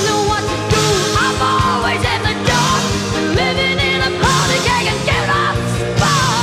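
Rock music played from a vinyl record over speakers: a steady beat under sustained chords, with a high melody line sliding between notes.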